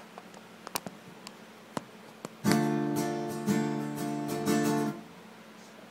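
A few faint clicks, then about halfway through an acoustic guitar strums a chord, re-struck about once a second for some two and a half seconds before it is cut off suddenly: a false start of the take.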